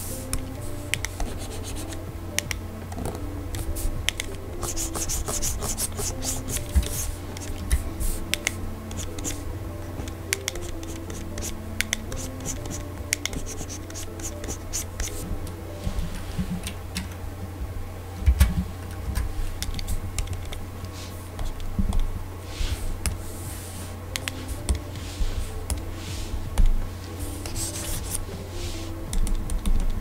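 Stylus scratching and tapping on the screen of a Gaomon PD2200 pen display, with many scattered light clicks, over soft background music.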